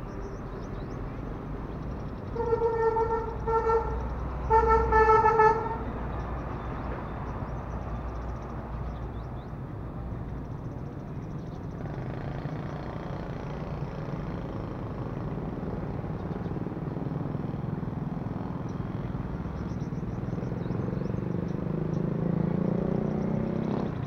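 A vehicle horn beeping several times in quick succession, about two to five seconds in, over the steady rumble of road traffic. Faint high chirping runs underneath.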